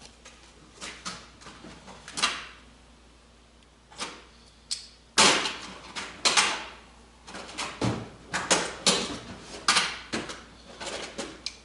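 Metal hand tools being handled: irregular clicks, clanks and scrapes, the loudest about five and six seconds in, as channel-lock pliers are fetched and a hole saw is worked onto its arbor.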